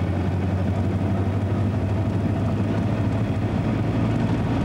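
Engine and road noise of a moving vehicle heard from inside the cabin: a steady low drone.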